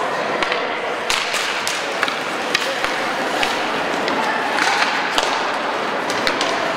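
Ice hockey play in an indoor rink: skate blades scraping on the ice and a dozen or so sharp clicks of sticks on the puck and on each other, over a steady din with scattered voices.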